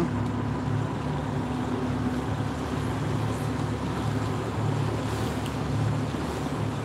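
River tour boat's engine running steadily, a low, even drone.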